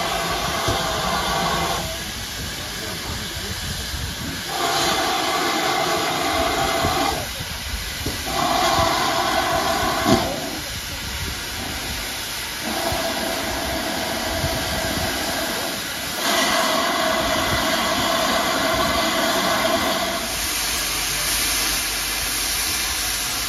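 GWR Saint-class 4-6-0 No. 2999 'Lady of Legend' easing slowly forward with its cylinder drain cocks open. Steam hisses loudly in long blasts of two to three seconds each, with shorter lulls between them. There is a single sharp knock about ten seconds in.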